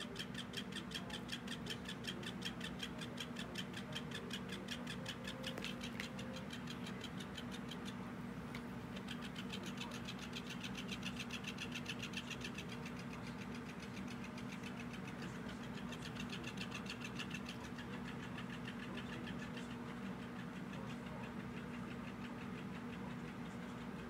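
Small battery motor of a robotic fish cat toy running, making a rapid, even rattling tick over a steady hum as its tail flaps. The rattle dims and returns several times.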